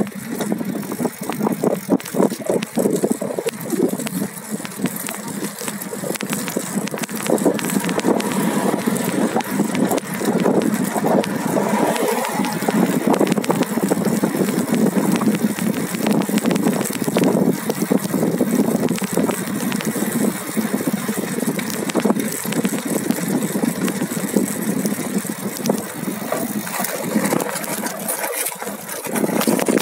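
Wind buffeting the microphone over a steady rumble, with constant rattling and clicking from riding over the road surface.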